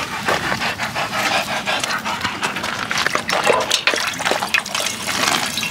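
A dog panting and lapping water from the bowl of a dog drinking fountain, a quick, irregular run of wet laps.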